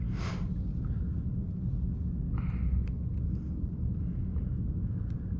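Steady low wind rumble on the microphone on open water, with a couple of short hisses and a few small clicks from handling on the kayak.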